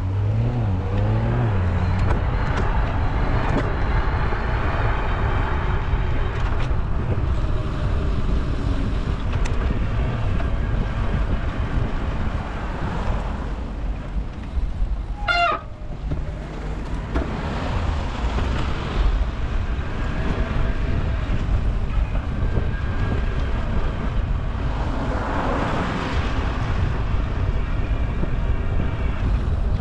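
Steady rumble of wind on a bicycle-mounted camera's microphone while riding, with city traffic: cars passing, one of them close near the end. A brief high squeal rises sharply about halfway through. The recording plays at double speed.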